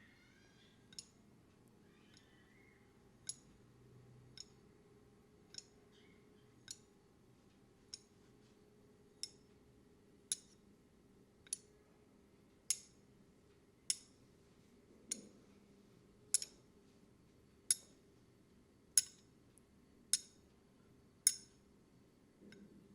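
A steady series of sharp clicks, about one every second, growing louder towards the end, over a faint low hum.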